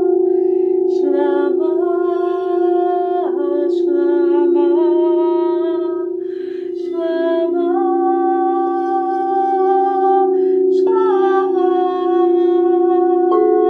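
A woman's voice chanting a mantra in long, sustained notes that step between pitches, with short breaths between phrases, over a steady drone.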